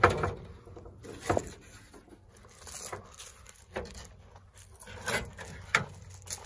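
A handful of separate light knocks and scrapes, the first and loudest right at the start, over a faint low steady background.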